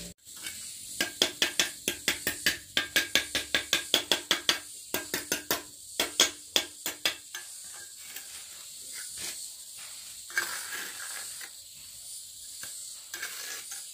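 A mason's trowel working a brick course: quick ringing taps and scrapes on brick and mortar, about five a second, with a short break near the middle. After about seven seconds they turn fainter and sparser.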